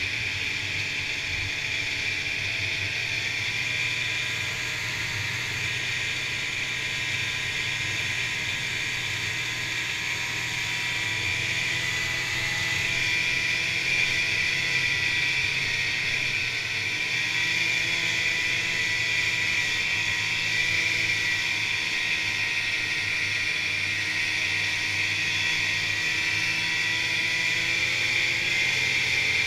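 Polaris Indy snowmobile riding along a trail at steady speed: its two-stroke engine and track running, heard from the rider's seat. The sound gets a little louder about halfway through.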